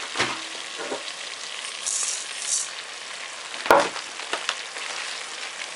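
Dry rice poured from a glass into a multicooker bowl, landing on a layer of onion and carrot, with a steady sizzle from the bowl where the pork has been frying. There is a high hiss from the grains about two seconds in, and a sharp knock just before four seconds in.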